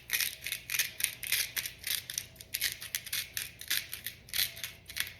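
Hand-twisted sea salt grinder being worked over a pan, a run of short crunching grinds about three or four a second.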